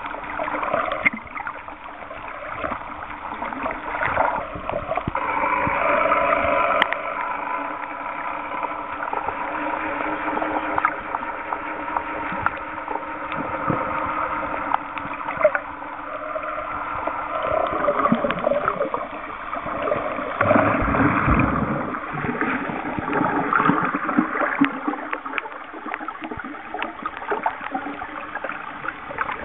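Water gurgling and sloshing around a camera held underwater, with scattered small clicks and a faint steady hum. There is a strong low surge of water noise about twenty seconds in.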